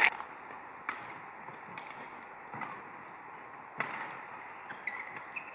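Badminton rackets striking the shuttlecock in a rally, sharp single hits about a second or more apart, with a brief squeak of court shoes on the mat near the end.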